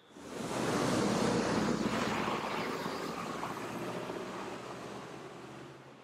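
A road vehicle going by: a rush of engine and tyre noise that swells in within the first second, then slowly fades.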